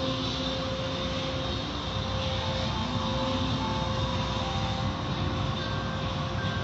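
Automatic car wash heard from inside the car: spinning cloth brushes and hanging cloth strips scrubbing against the windows and body amid water spray, over a steady machine hum.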